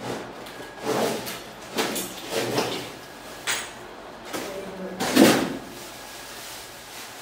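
Cardboard box and plastic wrapping being handled as a brush cutter's long drive shaft is unpacked: a series of short scrapes and rustles about once a second, the loudest about five seconds in.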